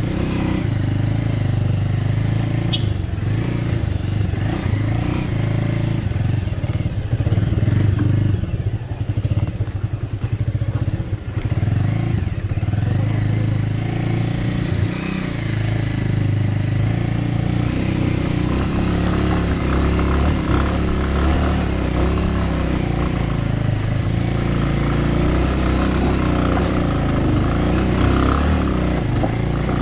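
Bajaj Avenger motorcycle's single-cylinder engine running under load as it climbs a rough dirt track, the throttle uneven for a few seconds about a third of the way in.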